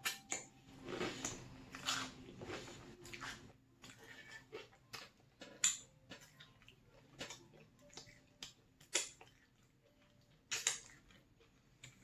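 Close-miked chewing of cheesy pepperoni pizza dip: irregular mouth smacks and clicks with short pauses between bites.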